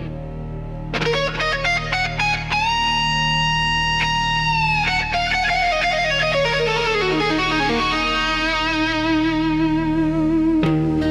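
Instrumental rock music led by an electric guitar: a run of quick notes, then a long held note that slides down in pitch and settles into a wavering, vibrato-like note.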